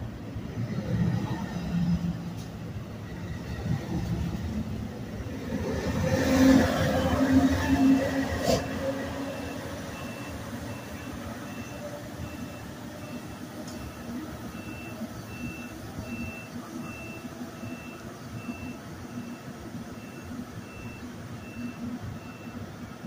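NJ Transit electric commuter train pulling out of the station: a low rumble of the bilevel cars going past, loudest about six to eight seconds in, then fading. From about eight seconds on, a steady series of short high beeps, a little under two a second.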